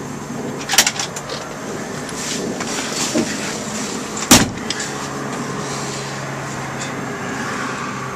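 Classic Ford Mustang's driver door: the latch clicks open about a second in, then after some rustling of someone climbing into the seat the door shuts with one heavy thud a little past four seconds. A steady low hum runs underneath.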